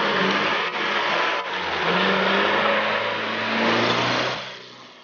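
Off-road 4x4's engine revving under load, its pitch rising and falling, dropping away sharply near the end.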